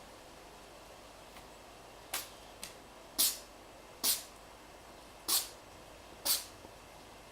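A pet rabbit sneezing repeatedly: six short, sharp sneezes about a second apart, starting about two seconds in, over a faint steady hiss.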